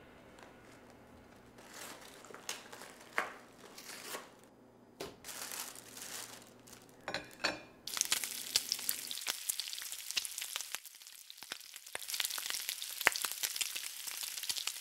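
Fat sizzling and crackling in a frying pan on a gas burner, starting abruptly about eight seconds in. Before it come a few scattered sharp knocks and rustles.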